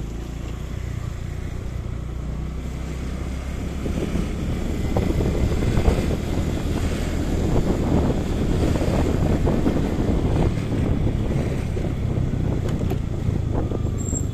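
Motorcycle engine running steadily while riding at low speed, with wind rumbling on the microphone that grows louder through the middle.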